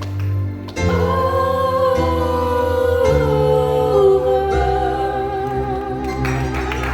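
Slow music: a single high voice holds long, drawn-out notes over sustained low chords that shift every second or so, coming in strongly about a second in.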